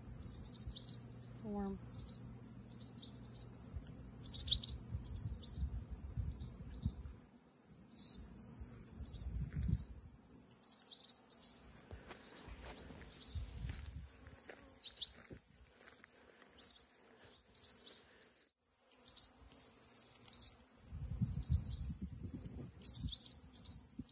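Crickets chirping steadily, short high chirps about twice a second, over a faint high hiss, with low wind rumble on the microphone coming and going.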